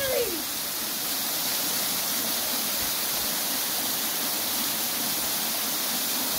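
Steady rush of running water, an even, unbroken hiss.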